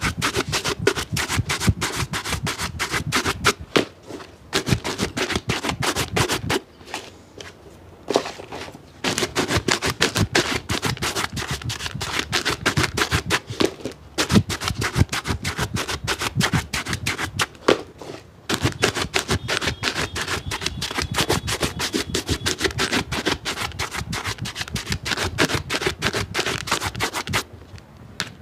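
Rapid back-and-forth brushing strokes on a shoe, coming in bouts with short pauses between them.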